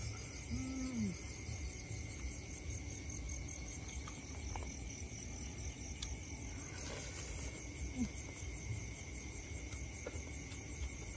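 Night insect chorus: crickets trilling steadily, with a few brief low falling hums and small faint clicks over it.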